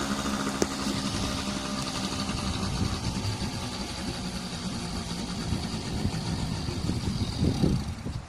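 HDX T2.5 two-stroke outboard motor, running on a moped carburettor, cuts out near the end.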